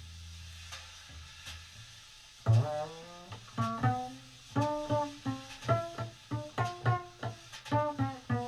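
Unaccompanied jazz double bass solo played pizzicato: a low note rings and fades, then about two and a half seconds in a quick run of plucked notes climbs into the upper register, some of them slid.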